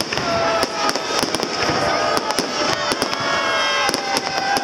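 Fireworks salute with many aerial shells bursting at once: a dense run of sharp bangs and crackling, with thin whistling tones rising and falling among them.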